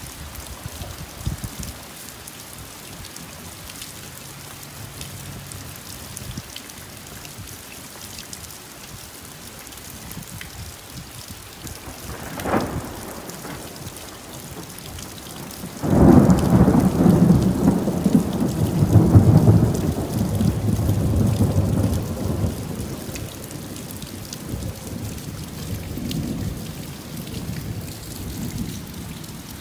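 Summer rain falling steadily, with a short crack about twelve seconds in. A few seconds later a loud peal of thunder sets in suddenly and rolls on for several seconds before fading back under the rain.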